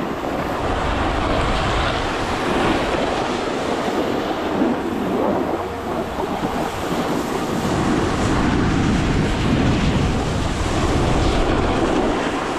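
Snowboard sliding and carving over packed snow on a downhill run, a steady rushing noise, with wind buffeting the microphone.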